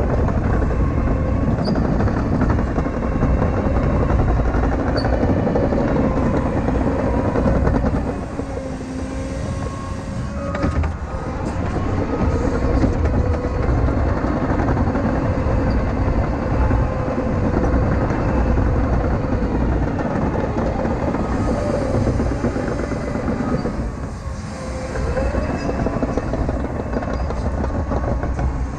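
CAT 953K track loader working: its diesel engine runs under load with a whine that wavers in pitch, over the clatter of its crawler tracks. The noise drops briefly about eight seconds in and again near the end.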